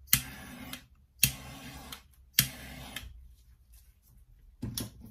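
Handheld gas torch fired in three short bursts, each a sharp ignition click followed by under a second of flame hiss. The torch is being swept over a wet acrylic pour to bring up cells.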